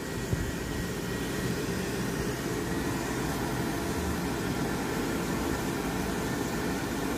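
Push-button ASI warm-air hand dryer running with a steady blowing whoosh. There is one light click just after the start.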